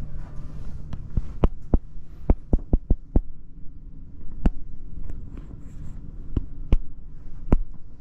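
Irregular sharp knocks and thumps: a quick run of them between about one and three seconds in, then a few single ones spread through the rest, over a steady low hum.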